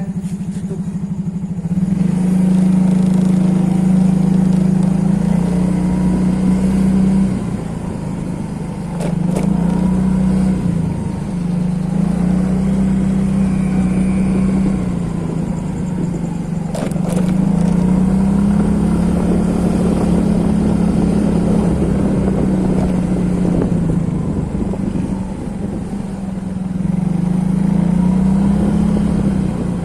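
Engine running with a steady low hum that grows louder and softer several times, and two sharp clicks partway through.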